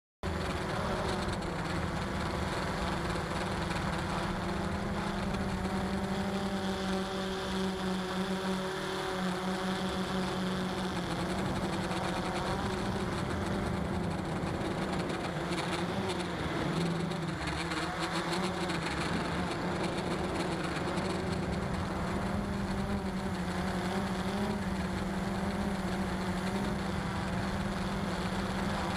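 Walkera QR X350 PRO quadcopter's electric motors and propellers humming steadily in flight, recorded by its onboard camera. The pitch wavers slightly, and wind rushes over the microphone.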